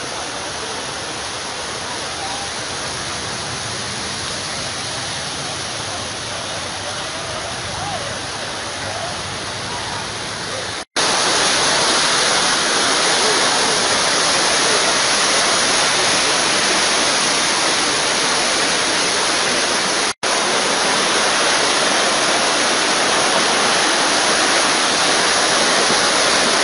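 Muddy flash-flood water rushing, a steady roar of fast-flowing water that gets louder and brighter about eleven seconds in, broken by two brief dropouts.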